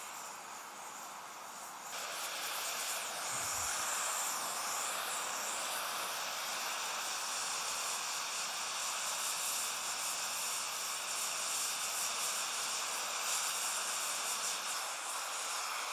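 Oxy-fuel torch with a large rosebud tip hissing steadily during brazing, growing louder about two seconds in.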